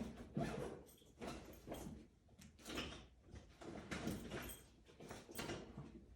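A string of irregular knocks, clunks and scrapes from tools being picked up, moved and set down.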